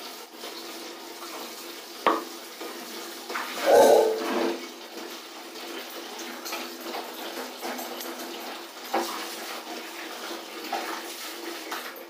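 Tap water running steadily into a plastic bucket, with clothes being swished and pressed in a bucket of soapy water. A few knocks and splashes come through, the loudest about four seconds in.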